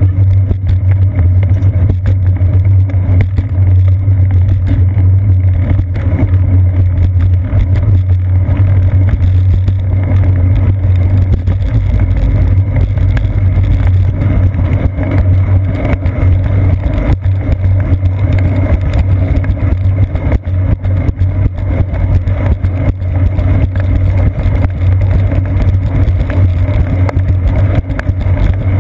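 Steady low rumble of a bicycle rolling over wet pavement, picked up by a seat-post-mounted GoPro: tyre and frame vibration carried through the mount, muffled by the camera's waterproof housing.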